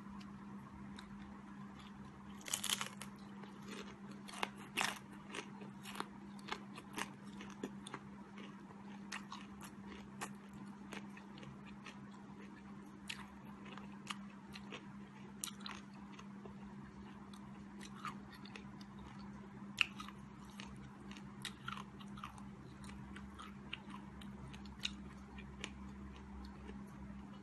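Deep-fried, flour-battered crab being bitten and chewed close to the microphone: many short, crisp crunches of the fried coating and shell, with the loudest crunch about two and a half seconds in. A steady low hum runs underneath.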